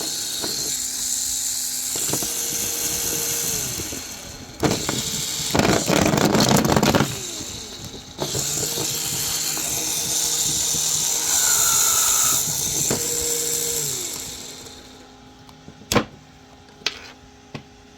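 A small off-brand Lego-style XL electric motor, a low-speed, high-torque geared type, running in two spells with a steady whine. Between them, about five to seven seconds in, comes a louder, rougher stretch. It winds down about fourteen seconds in, and a few sharp clicks follow.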